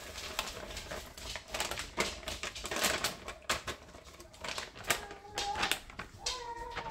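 Frozen vegetables, peas among them, being tipped from a crinkly bag into a pot, with a quick run of rattling clicks.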